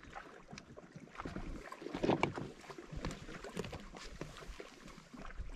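Close footsteps and rustling of clothing and gear as a person walks right up to the microphone, with scattered irregular clicks and knocks, a little louder about two seconds in.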